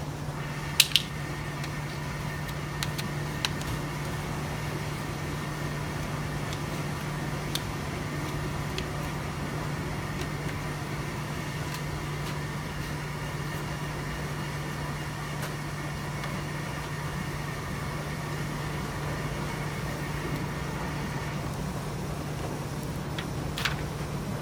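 Steady hum of laundromat machinery, with a fainter higher whine that cuts off near the end. A few brief sharp clicks stand out, two close together about a second in and one more near the end.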